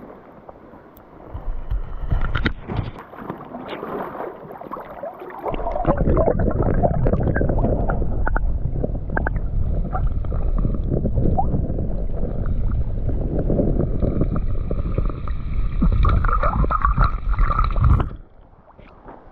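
River water gurgling and churning around a camera microphone held underwater while a released pink salmon is let go. A few seconds of scattered clicks and splashes come first, then a loud, muffled churn that cuts off suddenly near the end as the microphone comes out of the water.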